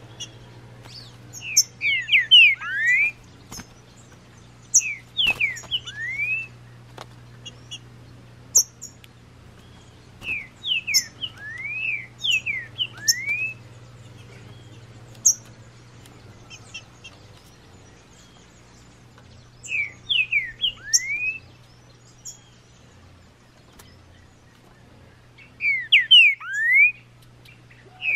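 Green-winged saltator (trinca-ferro) singing: short phrases of clear, sliding whistles, repeated every few seconds with pauses between.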